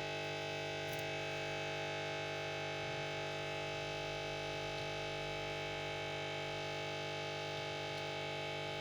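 Steady electric hum and whine with several fixed tones from a hot-air rework station blowing, used to heat and remove a tablet's charging jack.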